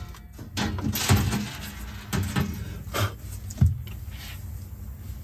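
Irregular metal clunks, knocks and scraping from galvanized sheet steel being worked and adjusted by hand, with a few sharper hits about one, two, three and three and a half seconds in.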